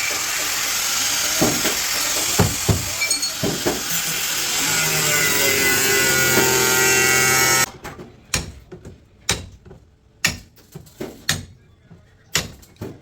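A power tool runs steadily and loudly, then cuts off suddenly about eight seconds in. A scattered series of sharp knocks and taps follows.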